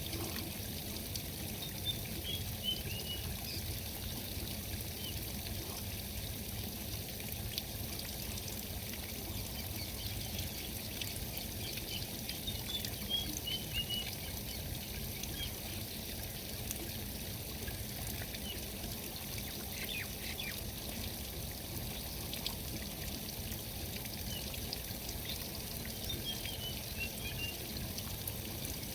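Steady rushing noise like running water, with a few faint, high descending bird chirps: near the start, around the middle, again a few seconds later and near the end.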